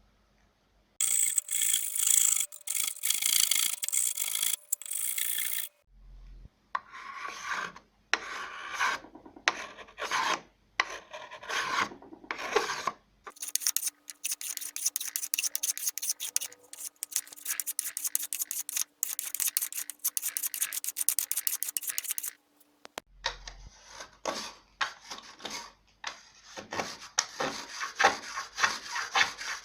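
A hand tool working wood in rapid repeated scraping strokes, in four separate takes with abrupt cuts between them.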